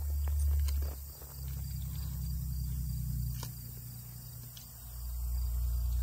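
Faint insects chirping over a low, uneven rumble, with a few faint clicks.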